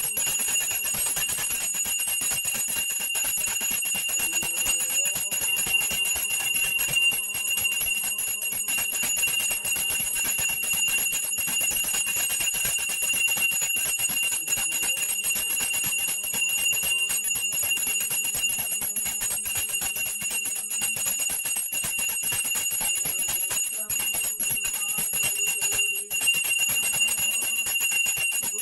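Pooja bell rung rapidly and without pause, its strikes coming many times a second over a steady high ringing.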